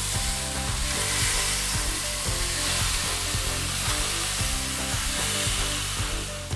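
Soy-and-honey-marinated flank steak sizzling on a hot cast-iron grill pan, a steady dense hiss with the wet marinade bubbling at the edges.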